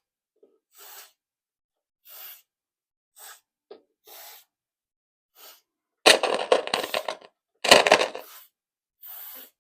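Aerosol contact cleaner sprayed in short hissing bursts, about half a dozen. About six seconds in come two loud stretches of scratchy crackling, typical of a dirty volume potentiometer being worked, heard through the boombox speakers.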